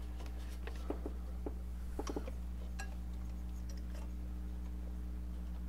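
A few light clicks and taps as a hand works a new serpentine belt onto the alternator pulley and checks its seating, about a second in and again around two seconds in, over a steady low hum.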